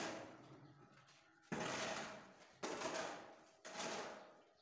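Metal shovel scraping and scooping through a heap of cement mix on a concrete floor, in repeated strokes about a second apart, each starting sharply and trailing off.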